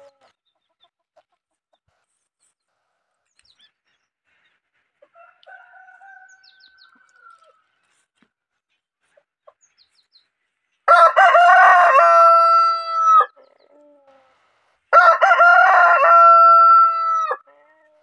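Desi rooster crowing twice, each crow a loud call of a bit over two seconds that drops in pitch at the very end. The crows come about four seconds apart in the second half.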